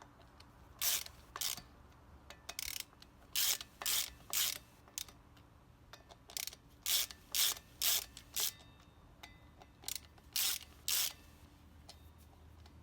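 Socket ratchet clicking in about fifteen short, uneven bursts as the Torx bolts holding the brake disc to the wheel are run down.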